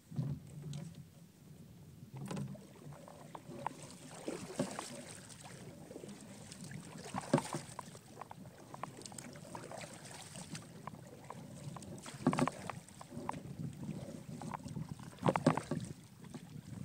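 Kayak paddling: a double-bladed paddle dipping and pulling through the water on alternate sides, with a louder splash every two to three seconds over a steady wash of water against the hull.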